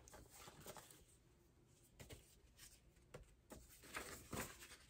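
Near silence: room tone with a few faint rustles and soft clicks, a little louder near the end.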